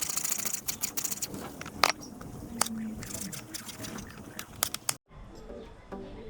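Rapid, irregular clicks and scrapes from handling the washed raw chicken pieces. After a sudden cut about five seconds in, background music begins.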